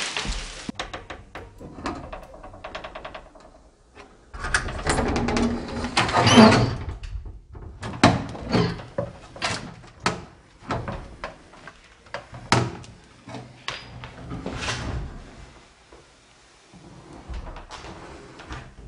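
Door being handled and opened: a string of knocks, clicks and rattles, with a longer scraping, rustling stretch about four to seven seconds in.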